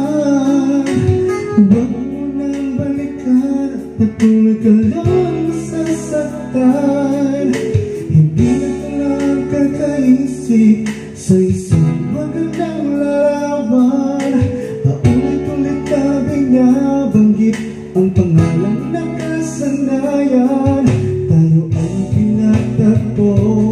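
A karaoke track of a Tagalog song playing on a Platinum Kapitan 2 DVD karaoke player: guitar and bass accompaniment with a singing voice carrying the melody.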